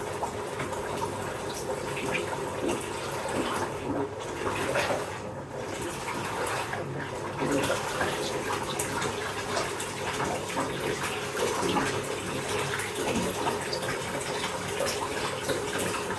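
Bath tap running into a filling bathtub: a steady rush of water.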